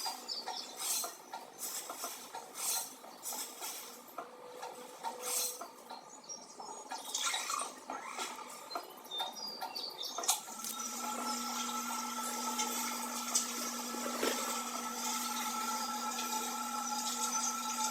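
Light clicking and scraping of small objects, then about halfway through a small motor starts abruptly and runs with a steady hum.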